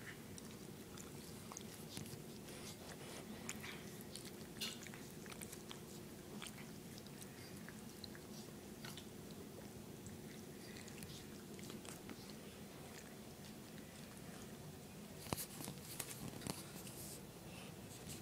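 Cats eating wet cat food: wet chewing and lip-smacking clicks at an irregular pace, with a louder flurry of clicks near the end.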